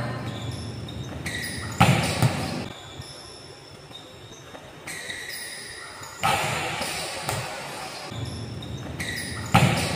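A volleyball being struck during a rally: sharp slaps of hands and arms on the ball, about four in all and spaced a few seconds apart, each with a short echo.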